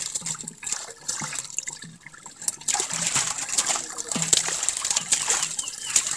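Water splashing and sloshing with many short, sharp splashes as live fish thrash in a shallow pool held in a cast net and hands scoop them out.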